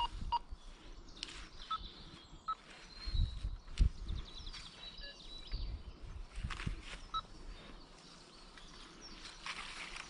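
Metal detector giving short, high beeps now and then as the search coil is swept over the ground, with birds chirping and a few dull thumps around three to four seconds in.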